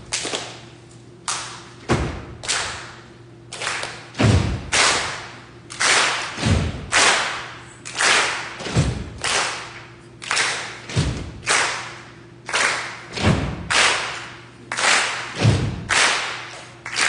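Rhythmic percussion: a deep thump about every two seconds, with sharp, hissing hits in between, each ringing out briefly in the hall.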